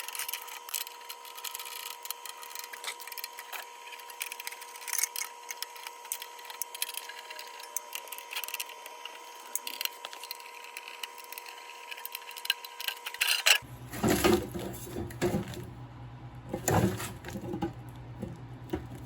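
Tools and plastic and metal parts being handled as a garage door opener's cover is taken off: many small clicks, rattles and scraping. About two-thirds of the way through the sound changes abruptly, with a low hum under the clatter.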